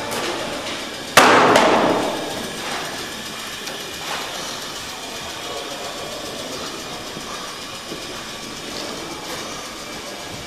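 Gear-motor drive system of a kinetic sculpture, a long shaft fitted with cams, running with a steady mechanical rumble. A loud knock about a second in rings away over about a second, and a few lighter knocks follow.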